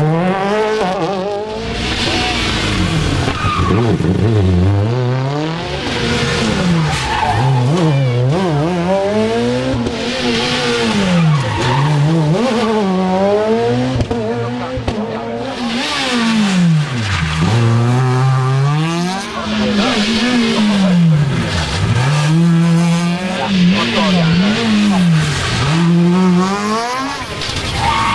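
Rally car engines at full throttle on a special stage, revs climbing and dropping every couple of seconds through gear changes and lifts off the throttle.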